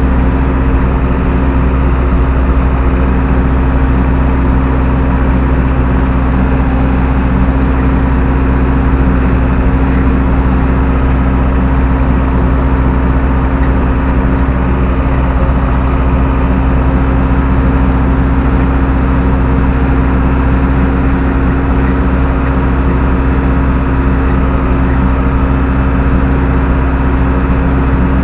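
Zetor 6745 tractor's four-cylinder diesel engine running at a steady, unchanging speed.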